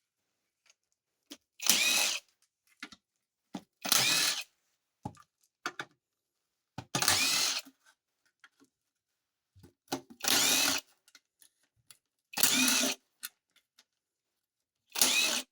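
Power drill with a half-inch socket spinning the oil pan bolts out of a TH400 transmission, one bolt at a time: six short bursts of motor whine, each under a second and rising in pitch, a couple of seconds apart.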